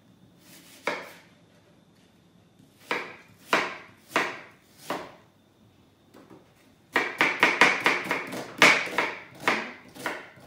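Kitchen knife chopping an onion finely on a wooden cutting board: a few separate cuts, then a quick run of chops, about four or five a second, in the last three seconds.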